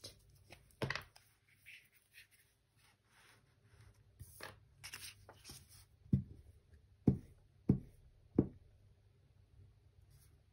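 Paper being handled and rustled as a background sheet is laid down on a junk journal page, with soft scrapes and clicks, then four sharp taps in the second half.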